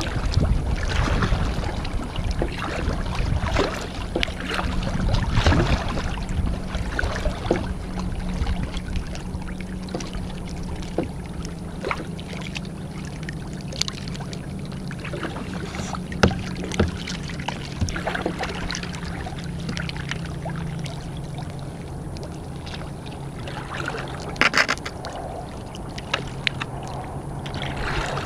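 Kayak paddle strokes dipping and splashing in calm water every second or two, with water washing along the hull and a few sharper knocks, the sharpest about 16 seconds in.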